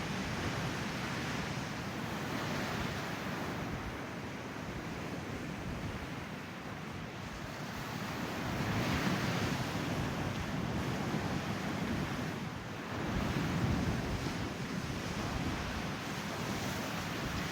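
Ocean surf: waves breaking and washing in as a steady rushing noise, swelling louder twice in the latter half, with wind buffeting the microphone.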